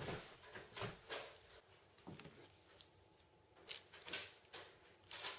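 Faint scattered handling noises: soft rustles and a few small clicks, with a cluster of short clicks near the end as a TV remote is handled and its buttons pressed.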